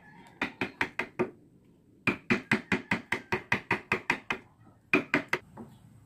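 Quick, sharp taps on a wood chisel as it cuts a shallow hinge mortise into the edge of a wooden door. The taps come in three runs of about five a second, with short pauses between them; the longest run falls in the middle.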